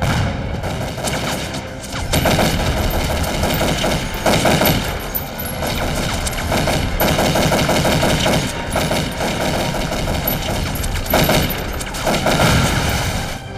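Dense automatic rifle fire, long rapid bursts of gunshots overlapping one another, as a film battle sound effect.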